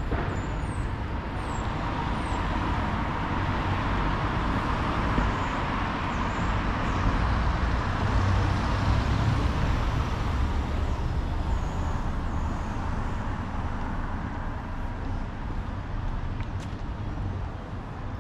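Town road traffic: cars passing close by, their tyre and engine noise swelling to its loudest about halfway through and then fading, over a steady low rumble of traffic.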